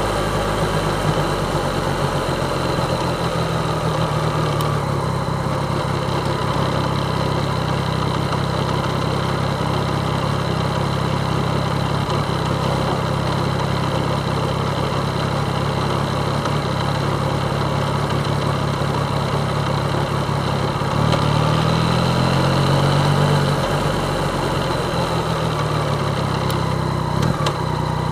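Yamaha MT-09 motorcycle's three-cylinder engine running at a steady engine speed. Its pitch rises briefly about 21 seconds in, then settles back.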